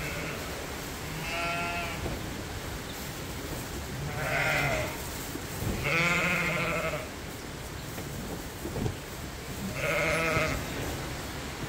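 Sheep in a straw-bedded pen bleating, four separate calls a few seconds apart.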